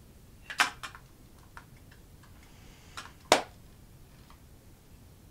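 Mechanical clicks from a 35mm film SLR camera body being handled: a quick cluster of clicks about half a second in, a few faint ticks, then two sharp clicks about a third of a second apart just after three seconds, the second the loudest.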